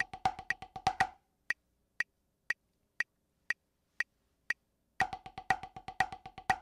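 Wooden drumsticks playing steady accented sixteenth notes on a rubber practice pad over a metronome clicking at 120 BPM. About a second in the playing stops and only the metronome clicks are heard, one every half second, for several beats. Then the sixteenths resume.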